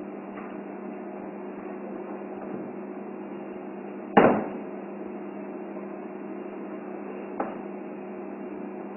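Whiteboard being wiped clean with a duster over a steady background hum, with a sharp knock against the board about four seconds in and a lighter knock later.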